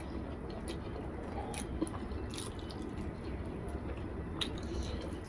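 A man chewing food with soft, wet mouth sounds and scattered small clicks, over a low steady hum.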